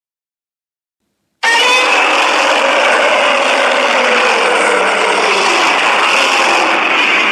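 Silence, then about a second and a half in a long, loud monster sound effect begins suddenly: the edited Godzilla Ultima roar-like cry from Godzilla Singular Point. It is harsh and dense, with a tone that slowly falls partway through.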